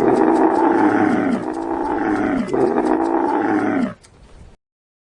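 White dove cooing: three long, throaty coos, each falling in pitch.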